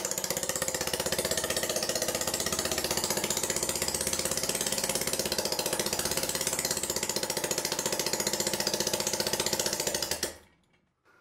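Homemade single-cylinder, air-cooled rotary-valve engine running under its own power with a rapid, even firing beat. About ten seconds in it cuts off suddenly.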